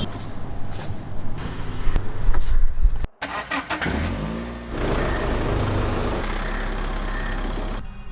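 Car engine running, with an abrupt cut about three seconds in. After it the engine pitch rises as the car pulls away, then settles into steady driving noise.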